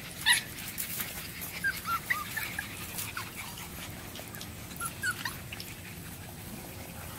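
Boxer puppies whimpering and yipping in short, high-pitched calls, the loudest a sharp yelp about a third of a second in, with scattered brief whines after it.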